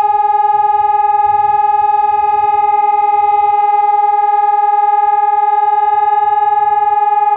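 Newly installed fire-station siren sounding a loud, steady tone that holds one pitch without rising or falling. This is the continuous tone of the German all-clear ('Entwarnung') signal, the last signal of the siren test.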